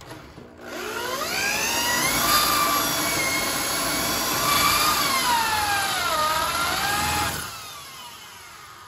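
Handheld electric drill boring a pilot hole into a broken steel stud in a car frame: its motor whine starts about half a second in and rises in pitch, runs steadily, dips in pitch and recovers around six seconds in, then stops about seven seconds in and winds down.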